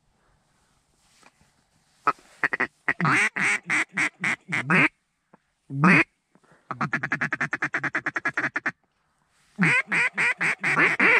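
Mallard hen calling blown on a duck call close by: a run of loud quacks about two seconds in, a fast even chatter of about ten notes a second in the middle, then another run of quacks near the end.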